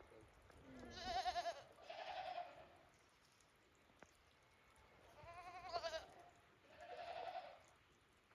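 A goat bleating four times, in two pairs about four seconds apart, each call with a quavering pitch.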